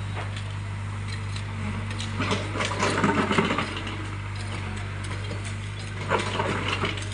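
Excavator's diesel engine running steadily, with two spells of metallic clanking and scraping from the machine at work, the louder about two to three and a half seconds in and a shorter one near the end.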